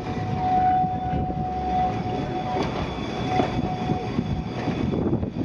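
Great Orme Tramway's cable-hauled tramcar running on its rails: a continuous rumble with a steady high whine over it that fades out after about four seconds.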